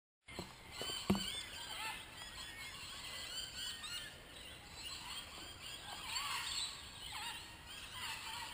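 Several birds calling and chirping at once, many short rising and falling notes overlapping, with a single sharp knock about a second in.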